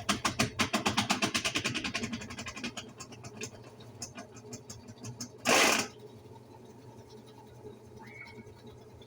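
Consul 10 kg washing machine clattering in rapid, even knocks that slow down and fade over a few seconds as the drum winds down from its spin. The owner blames the racket on a loose, worn drive pulley underneath the machine. About five and a half seconds in there is a short, loud rustling scrape, followed by a faint steady hum.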